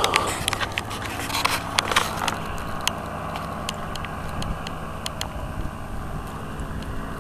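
Paramotor engines of powered paragliders flying overhead, a steady distant drone, with scattered sharp clicks throughout.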